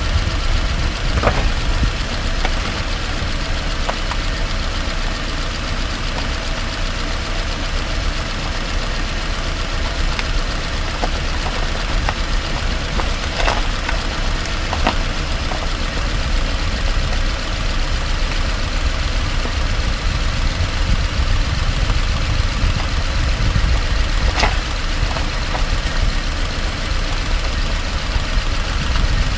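2018 Subaru Outback driving over rough, potholed asphalt, heard from beneath the car: a steady road and tyre rumble broken by a few short, sharp knocks, the clearest about 13 and 24 seconds in. The knocks are the intermittent clunk from around the driver's side front wheel, whose cause is not yet found.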